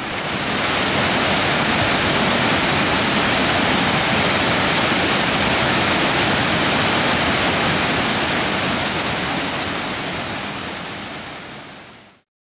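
Waterfall on a creek: falling water making a steady, dense rush. It fades up over the first second and fades away over the last two seconds.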